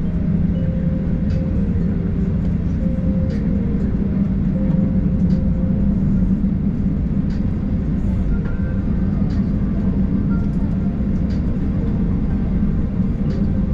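Steady low rumble heard from inside a moving vehicle, with faint short ticks every second or two and a murmur of voices in the background.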